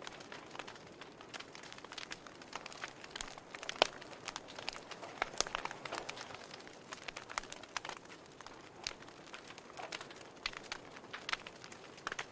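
Wood fire burning in a fireplace, crackling with irregular sharp pops and snaps over a soft hiss; one louder pop about four seconds in.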